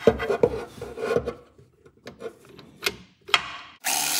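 Clicks and scraping of a socket and tool being fitted onto a transmission bellhousing bolt. Shortly before the end, a cordless power tool's motor starts with a steady whine, running the bolt in to pull the transmission snug against the engine block.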